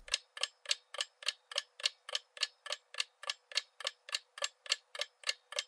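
Ticking-clock sound effect counting down a quiz timer: a steady run of sharp ticks, about three and a half a second.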